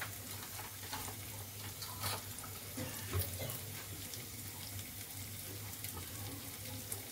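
Diced vegetables and lentils frying in oil in a kadai: a steady sizzle with scattered small crackles, over a low steady hum.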